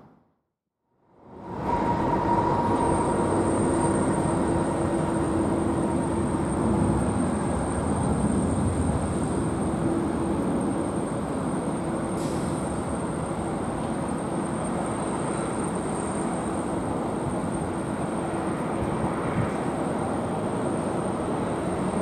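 United Boeing 777 on final approach and landing, its twin jet engines giving a steady rumble with a faint high whine. It starts about a second and a half in, after a moment of silence.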